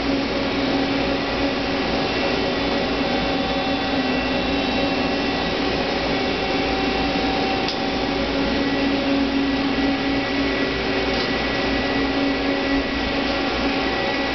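Hyundai HiT-30M CNC turning center running, a steady mechanical hum with a constant whine that holds one pitch.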